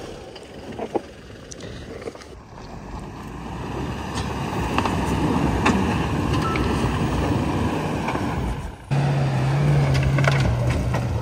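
Toyota Fortuner's diesel engine revving hard as the SUV claws up a steep loose-dirt slope, tyres spinning and spraying dirt and stones; the sound swells through the middle. About nine seconds in it jumps to a louder, steady low engine drone.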